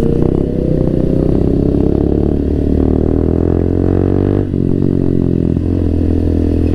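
Motorcycle engine pulling away under acceleration. Its pitch climbs steadily, breaks at a gear change about four and a half seconds in, then runs on fairly steadily.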